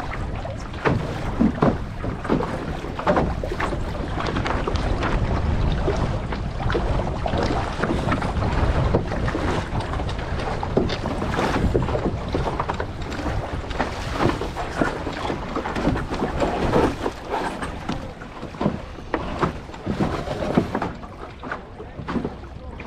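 Wind buffeting the microphone over water rushing and slapping against the hull of a sailing International Canoe, with many irregular splashes; it gets a little quieter and patchier near the end.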